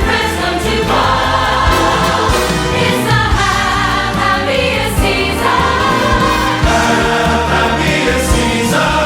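Large choir singing a Christmas song with orchestral accompaniment.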